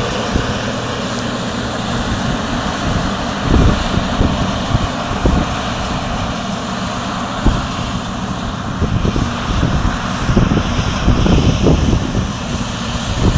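Combine harvester running steadily while harvesting soybeans, a continuous engine hum under an even machine rush, with irregular low thumps now and then.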